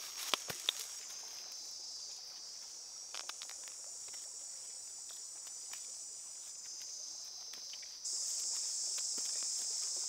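Steady high-pitched chorus of jungle insects that turns louder about eight seconds in, with a few light taps and rustles near the start and about three seconds in.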